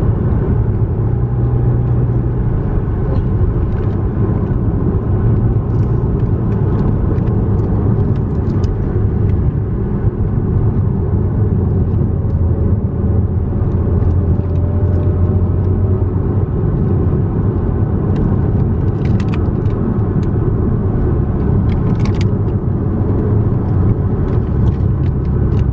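Audi B8.5 S4's supercharged V6 and tyre noise droning steadily inside the cabin while driving up a mountain road.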